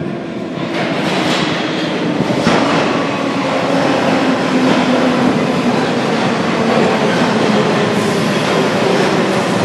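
London Underground tube train arriving at a platform: its rumble grows over the first second or so as it comes out of the tunnel, then holds as a steady loud rumble with a faint whine while the carriages run in along the platform.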